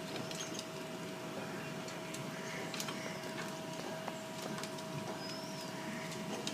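Steady low hum with a constant tone, scattered light clicks throughout, and two or three short, faint bird chirps.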